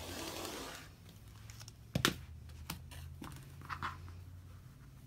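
A rotary cutter blade rolls through fabric along a ruler on a cutting mat for just under a second. About two seconds in comes a sharp knock, the loudest sound, followed by a few lighter taps and short rustles of the fabric being handled.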